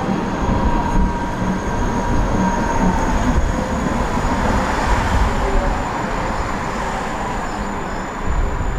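A tram running along its track: a steady rumble of wheels and running gear with a thin, steady whine over it.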